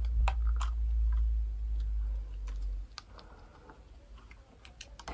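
Handling noise of an eyeshadow palette being turned and opened: scattered light clicks and taps, over a low rumble that stops about three seconds in.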